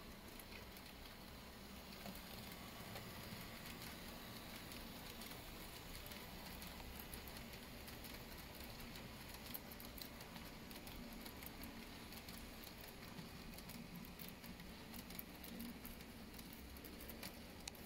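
N-scale model freight train rolling along the track, a Minitrix SNCF BB 22000 locomotive hauling Arnold grain hopper wagons. It makes a faint, steady rattle of small wheels with many light clicks, which grow a little busier as the wagons pass close by.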